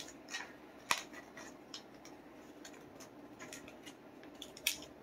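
Small clicks and taps of hands handling a folded paper card box and a tape dispenser, with a sharper click about a second in and another near the end.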